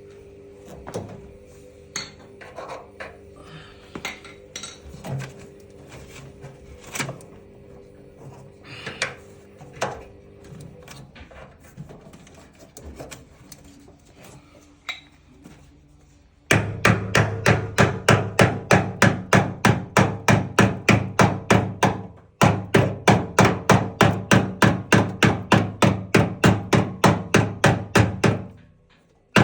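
Scattered light knocks and clicks of parts being handled, then a long run of rapid, evenly spaced hammer blows, about three to four a second, with one short pause, during a washing-machine shock absorber repair.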